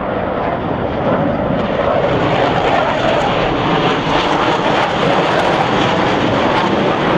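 Blue Angels F/A-18 Hornet's twin turbofan jet engines, loud as the jet passes low overhead. The noise swells about a second in and takes on a crackling edge in the later seconds.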